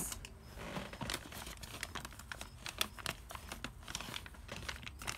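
Clear plastic bag crinkling in irregular crackles as it is handled and opened.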